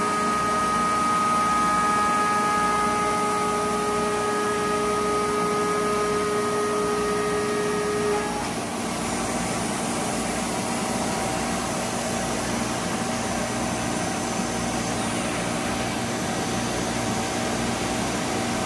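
Gantry CNC router's spindle whining steadily as it mills a foam block, over a steady rush of noise. About eight seconds in, the strong whine cuts off and a different, fainter tone carries on with the noise as the head moves on.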